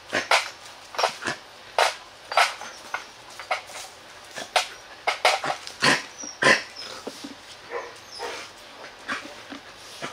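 Two golden H'mong bobtail dogs being played with and petted, making a string of short, irregular yips and whimpers.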